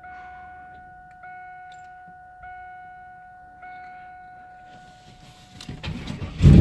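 Car's dashboard warning chime ringing steadily, with a fresh chime about every 1.2 s, four in all, with the key switched on. Near the end the starter begins cranking the Trans Am's swapped-in iron-block 6.0 V8, rising quickly in loudness.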